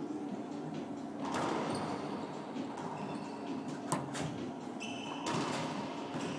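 Racquetball rally on an indoor court: a single sharp crack of the ball being struck about four seconds in, the loudest sound, among softer noises of play and footwork.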